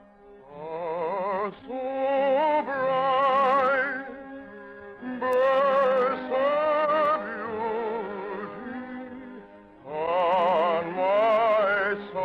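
An operatic singer with a strong vibrato, accompanied by an orchestra, sings three long phrases with short breaks between them.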